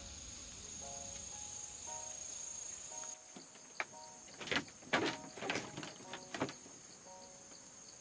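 Insects shrilling in one steady high tone for about three seconds, then stopping. After that comes a run of sharp wooden knocks and clatters, loudest around the middle, as a wooden skewer of roasted birds is handled and set onto forked sticks over the fire.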